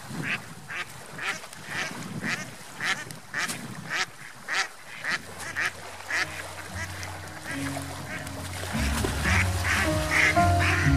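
Mallard ducks quacking in a quick, regular run of about two or three quacks a second. About halfway through, background music fades in and grows louder, taking over by the end.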